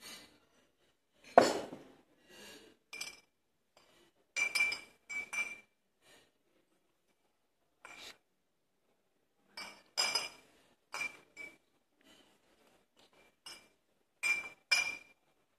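Glass bottles and stainless-steel shaker tins clinking and knocking together on a table during flair-bartending practice, in scattered sharp hits with a short ring, the loudest about a second and a half in.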